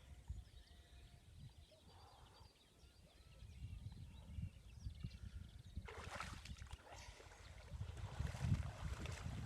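Faint birds chirping, then about six seconds in, water splashing and sloshing as someone bathes, over a low rumble of wind on the microphone.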